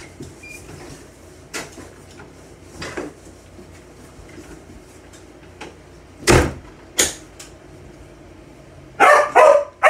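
A few scattered knocks and bangs: faint ones early, two loud bangs about six and seven seconds in, then a quick run of loud, sharper sounds near the end.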